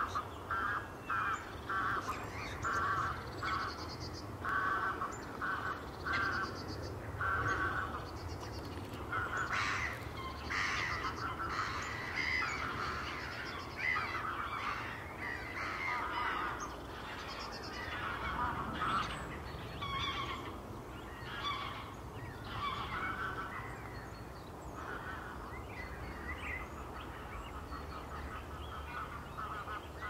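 Greylag geese honking in repeated series, with black-headed gulls, rooks and great tits calling among them. The honks come regularly at first, and the calls grow more mixed and then thin out near the end.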